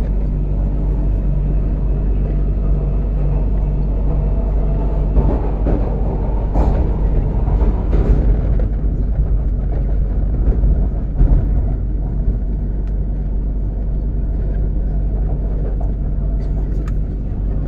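MTR Kwun Tong Line Q-Train running between stations: a steady low rumble of wheels on track and traction motor hum, with a few clicks and louder stretches in the middle.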